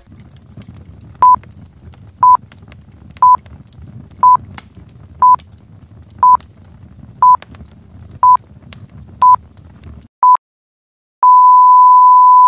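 Countdown-timer sound effect: ten short beeps at one-second intervals. After a brief pause comes one long, steady beep that marks the end of the countdown.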